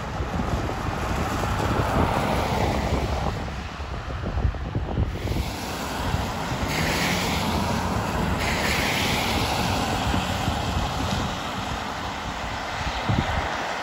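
Wind buffeting the microphone over the hiss of car tyres driving through floodwater on a road, with runoff water rushing along the roadside. A louder tyre-spray hiss passes about seven seconds in.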